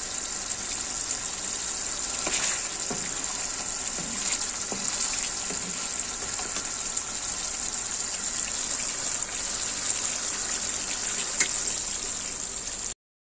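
Beef rendang bubbling and sizzling in a wok, its coconut-milk sauce almost cooked down, with a few light knocks of a wooden spatula against the pan. The sound cuts off suddenly near the end.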